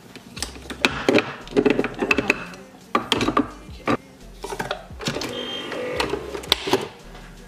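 Irregular clinks and knocks of a glass mug being handled and set down on a counter under a pod coffee machine, with music in the background.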